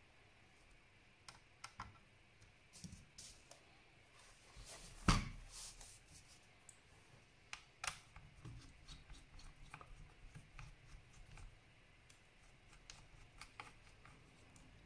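Scattered light clicks and taps of a Dell Inspiron 15 laptop's plastic case and small parts being handled during disassembly, with one sharper click about five seconds in and another near eight seconds.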